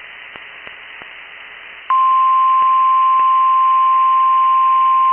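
Faint radio hiss with a few soft clicks, then about two seconds in a NOAA Weather Radio warning alarm tone, a single steady 1050 Hz tone, comes on suddenly and holds steady and loud. It is the alert tone that comes before a broadcast weather warning.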